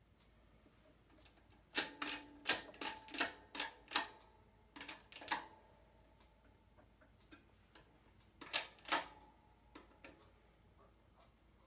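Sharp metallic clicks and clacks from a hydraulic shop press as a new universal joint's bearing cap is pressed into a drive shaft yoke. A quick run of about eight clicks comes about two seconds in, two more follow, then a pair near nine seconds and a few faint ticks.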